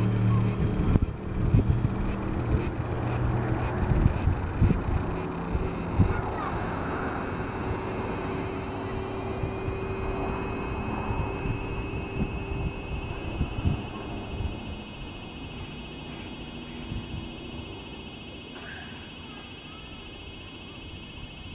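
Japanese cicada calling: a series of pulses, about three a second, that about six seconds in merges into a continuous, steady, high-pitched buzz.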